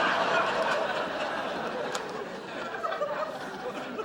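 Studio audience laughing at a sitcom punchline, loudest at the start and gradually dying down.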